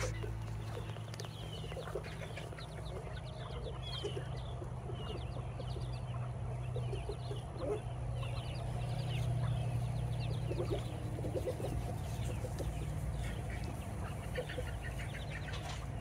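Muscovy ducklings peeping: many short, falling high peeps throughout, with short lower calls from adult birds now and then, over a steady low hum.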